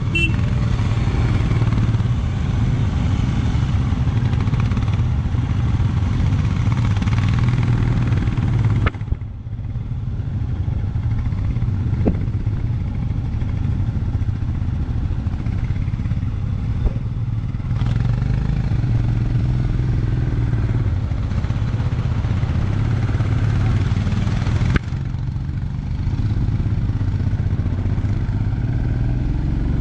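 Motorcycle engine running steadily on the move, with a rushing noise over it that drops away abruptly about nine seconds in, comes back, and drops again near the end.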